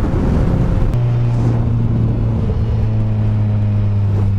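BMW S1000RR's inline-four engine running at a steady cruise, its note climbing slightly over the last few seconds, under wind rush on the microphone. The first second is mostly wind noise before the engine note comes through strongly.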